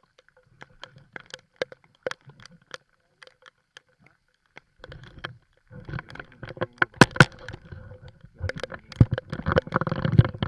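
Handling noise on a small fishing boat: scattered sharp clicks and taps, then from about five seconds in a busy run of knocks, thumps, scrapes and rustle, with the loudest knocks near the middle and end.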